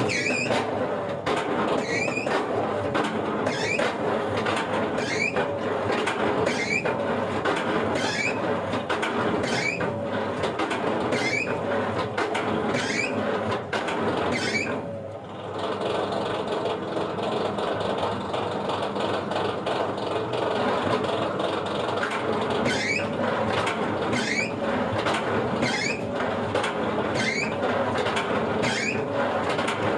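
Wood-processing machinery running with a steady clatter and a repeating knock about once a second, dropping briefly about halfway through before carrying on.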